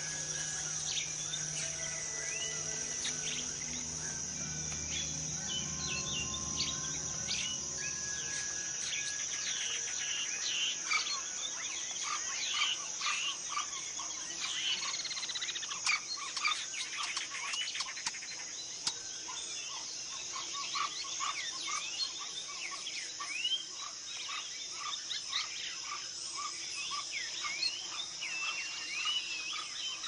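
Tropical rainforest chorus: a steady high-pitched insect drone with many frogs and insects chirping over it. The chirping grows much busier about a third of the way in. Low held tones sit under it at first and fade out.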